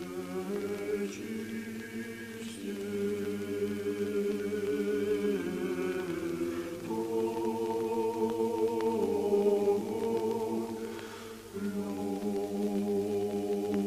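Unaccompanied choir singing Old Believer znamenny chant: slow phrases of long held notes in several voices, breaking and moving to new notes about every four seconds.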